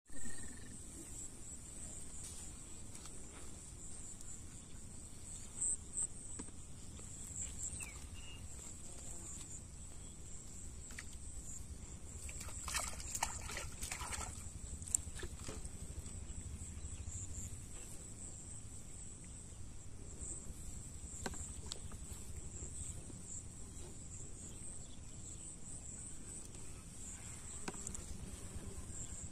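Outdoor ambience dominated by a steady, high-pitched insect chirr, with a low rumble of wind underneath. A short burst of rustling noise comes about halfway through.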